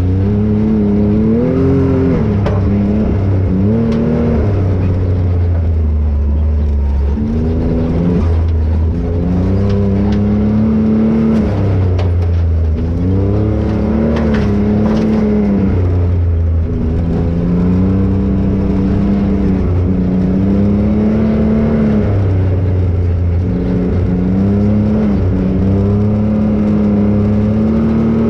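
Can-Am Maverick X rc 1000 side-by-side's Rotax V-twin engine running under way. Its pitch rises and dips again and again as the throttle is worked over an uneven forest trail.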